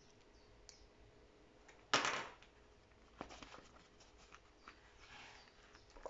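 Faint handling of a small lighter and coins: one short, sharp sound about two seconds in that fades over about half a second, then a few faint clicks and a soft rustle.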